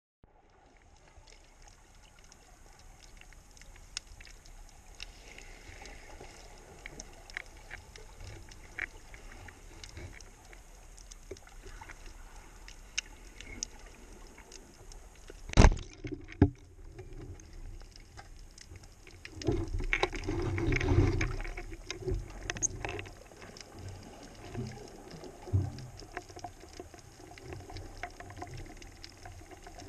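Underwater sound with a steady scatter of small clicks and crackles. About halfway through comes a single sharp crack, the wooden, rubber-band-powered Guépard 80 speargun firing its shaft, with a smaller knock just after. A few seconds later there is a burst of rushing, rumbling water noise.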